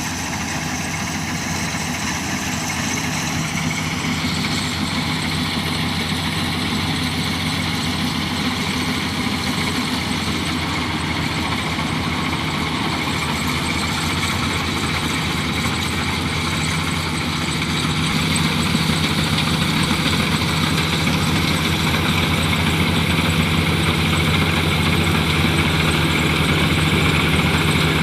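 Rice combine harvester's engine running steadily, with the machine's broad mechanical clatter over it; it grows a little louder about two-thirds of the way through.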